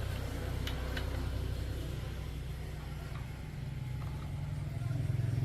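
A motor running steadily with a fast low pulse and a few light clicks about a second in; it grows louder near the end.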